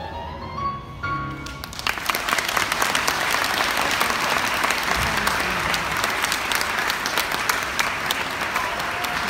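A song ends, its last note sliding upward and dying away in the first second and a half, then an audience breaks into steady applause.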